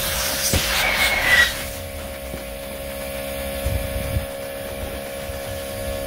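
A burst of hissing air for about the first two seconds as the fill hose is worked off the inflatable pool's valve, followed by a few low knocks. Under it, a steady motor hum from the ARB CKMA12 12-volt air compressor still running.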